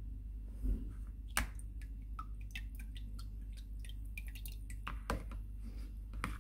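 Water dripping from a mesh sieve of wet paper pulp into a bowl of water below as the pulp drains off its excess water: an irregular scatter of sharp drip plinks, a few a second. A soft low knock comes near the start.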